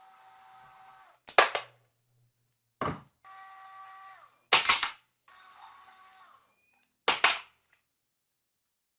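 Small electric screwdriver whining in three runs of about two seconds each as it undoes the drill's casing screws, with sharp loud clicks between the runs.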